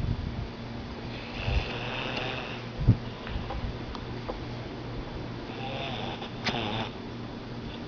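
A man snoring in his sleep: two long snores, about a second in and again near six seconds, the second ending in a short snort. A single dull thump just before three seconds is the loudest sound, and a steady low hum runs underneath.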